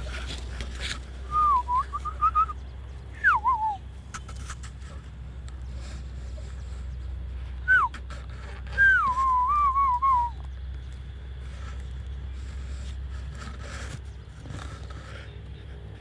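Clear whistling in four short phrases, each sliding down and wavering in pitch, the last and longest about nine seconds in, over a steady low rumble.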